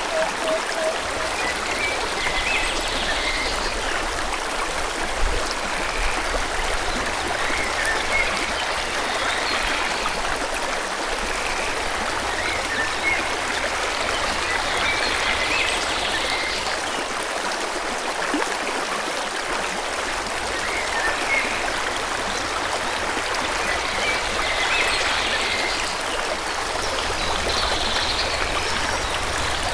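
Forest river flowing steadily, with small birds chirping on and off above it in short, high calls every second or two. A quick run of lower repeated bird notes sounds right at the start.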